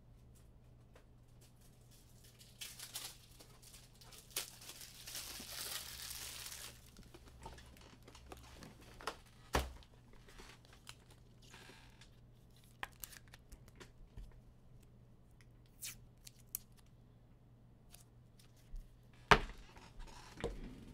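Trading cards and their plastic and foil packaging being handled: a few seconds of crinkling and tearing, then scattered light clicks and taps, with one sharp tap near the end.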